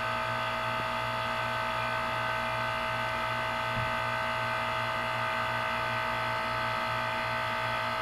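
2004 Carrier 3-ton heat pump outdoor unit running in defrost mode: a steady buzzing hum with a whine from its compressor.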